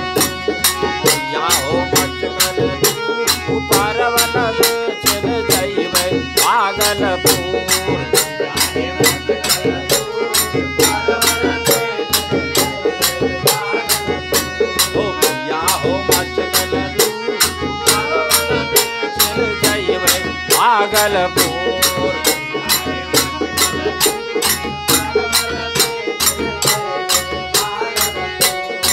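Village folk Holi music. A harmonium holds its notes, a dholak keeps the beat, and small hand cymbals clash quickly and evenly, about three strokes a second. Men's voices sing phrases over them every few seconds.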